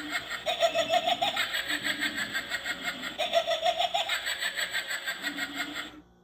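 Motion-activated Halloween pumpkin's built-in sound effect triggered by its sensor: a recorded, pulsing laugh played through the toy's speaker, cutting off suddenly near the end.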